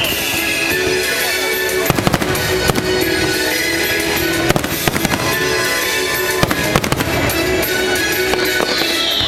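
Fireworks going off in clusters of sharp bangs and crackles, about two, four and a half and six and a half seconds in, over loud show music played through outdoor speakers; a falling whistle comes in near the end.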